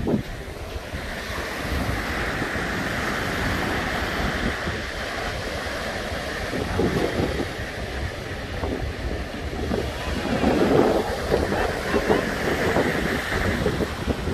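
Surf breaking and washing up a sandy beach, with wind buffeting the microphone in a low rumble.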